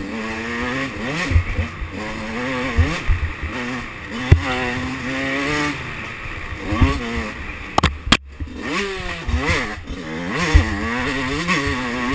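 2005 Yamaha YZ125's single-cylinder two-stroke engine revving up and down as the rider works the throttle, the pitch rising and falling every second or two. Sharp knocks from the bike hitting bumps come a few times, and a little past halfway the throttle snaps shut and the engine drops off for a moment before picking up again.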